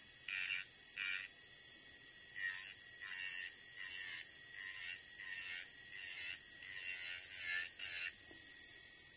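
Electric nail drill running at about 2,000 RPM, its barrel bit grinding the gel base coat off a fingernail with light pressure: a steady high motor whine with a short scrape on each pass of the bit, repeating roughly every second.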